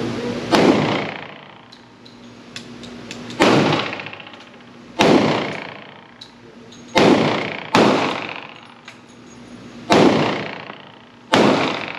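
A Glock 20 pistol in 10mm Auto being fired seven times at a slow, uneven pace, each shot echoing off the walls of an indoor range.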